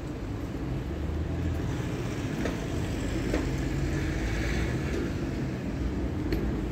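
Street traffic: a steady low rumble of passing vehicles, swelling slightly midway, with a few faint clicks.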